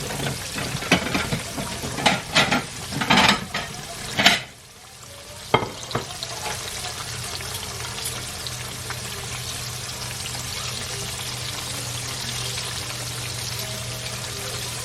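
A quick run of clattering knocks and clicks, then, after a short lull, a steady hiss with a low hum underneath.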